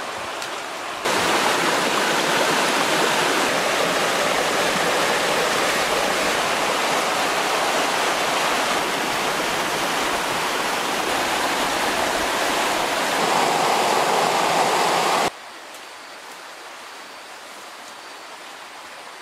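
Shallow rocky stream rushing and splashing close by, a steady hiss of water. It gets louder about a second in and drops away suddenly near the end, leaving a much quieter background.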